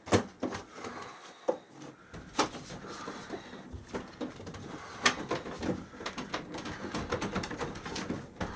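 Handling knocks, clicks and scraping as a window air conditioner is worked loose in its window frame, with three sharper knocks: one at the start, one about two and a half seconds in and one about five seconds in.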